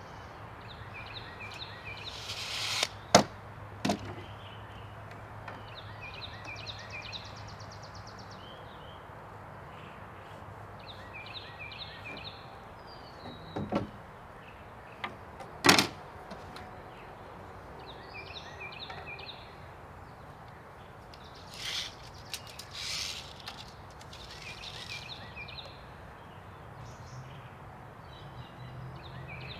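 Lumber and hand tools being handled while framing boards are measured and marked: a few sharp wooden clacks, the loudest about three seconds in and again past halfway, and several short scraping hisses later on. A small bird chirps a short repeated phrase throughout.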